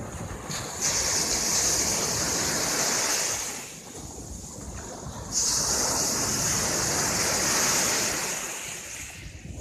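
Sea surf breaking at the shore and washing up the sand: two surges of hissing wash, each starting suddenly and lasting about three seconds, one about a second in and one just past the middle.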